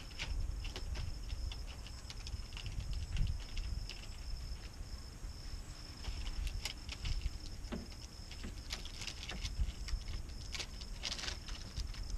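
Wind rumbling on the microphone, with scattered light clicks, taps and rustles of window-tint film being handled and smoothed onto a truck door window, under a steady high-pitched drone. Near the end come a few short hissing squirts from a spray bottle.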